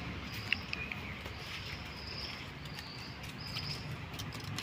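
Faint, thin, high-pitched animal calls, several short held tones about a second apart, with a few small clicks.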